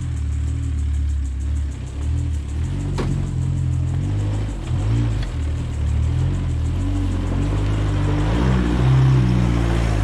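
Background music with a steady bass line over a Mitsubishi MN Triton ute crawling up a rutted dirt hill climb. Its engine and the crunch of its tyres on the dirt grow louder near the end as it comes close.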